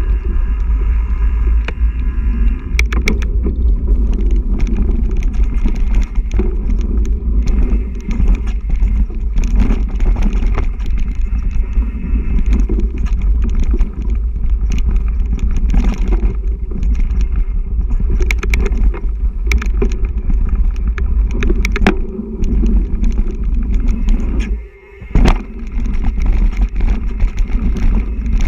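Onboard riding noise from a mountain bike on a dirt trail: a steady low rumble of wind and tyres on the camera microphone, broken by frequent rattling knocks as the bike jolts over bumps. About 25 seconds in the noise drops away for half a second and comes back with a loud knock.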